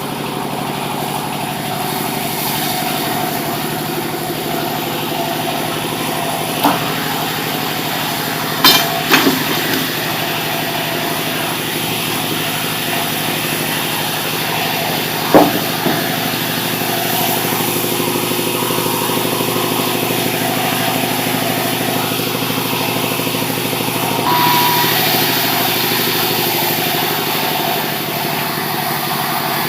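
Sawmill machinery running steadily with an engine-like hum, broken by several sharp knocks in the first half; near the end the sound gets hissier for a while.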